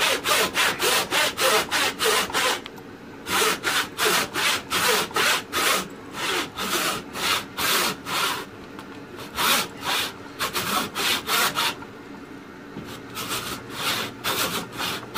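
A long Stanley miter box backsaw, a crosscut saw, rip-sawing along the grain to cut the cheek of a wooden tenon. It makes fast, even back-and-forth strokes, about four a second, in several runs with short pauses between.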